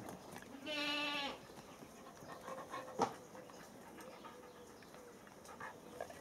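A single short animal cry, about half a second long at a steady pitch, and one sharp knock about three seconds in.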